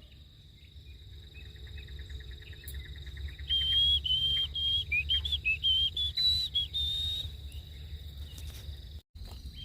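A run of high whistled notes stepping up and down in pitch for about four seconds, led in by a quick rapid trill that builds from about a second and a half in.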